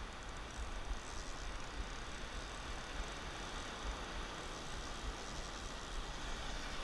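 Wind buffeting an action camera's microphone, a steady low rumble, over the even hiss of surf washing across a rocky reef shelf.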